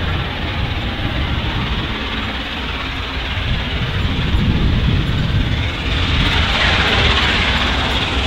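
Peppercorn A1 Pacific steam locomotive 60163 Tornado working hard in the distance with its train, a steady noisy roar of exhaust that grows louder about six seconds in as the engine draws nearer.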